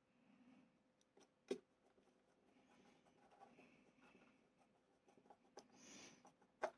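Faint scraping and ticking of a small screwdriver turning a tiny screw into a plastic model panel, with a sharper click about one and a half seconds in and another near the end.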